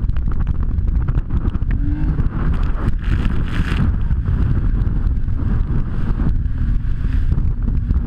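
Jet ski underway: a loud, steady rumble of the engine mixed with wind buffeting the microphone, with a brief brighter hiss about three seconds in.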